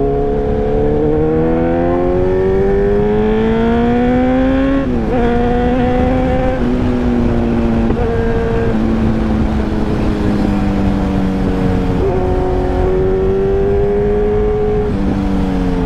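Kawasaki Ninja 1000's inline-four engine under way. It accelerates with a rising note for about five seconds, drops sharply on an upshift, then holds a steady, slowly falling note. About twelve seconds in it pulls up again briefly and eases off near the end, over a constant low rushing noise.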